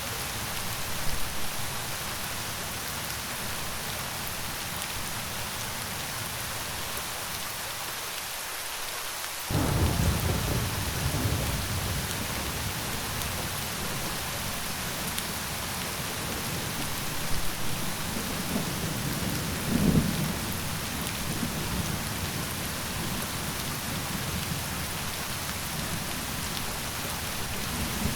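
Steady rain falling, with thunder: a sudden thunderclap about a third of the way in that rumbles on for a few seconds, and another rumble building to a peak about two-thirds of the way in.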